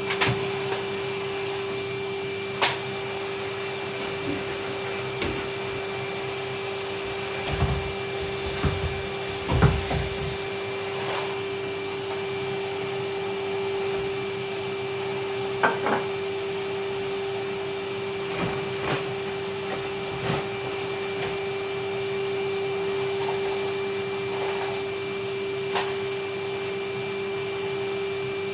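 Vacuum cleaner running steadily with a constant motor whine, the nozzle knocking and bumping now and then, with a few heavier low thumps about a third of the way in.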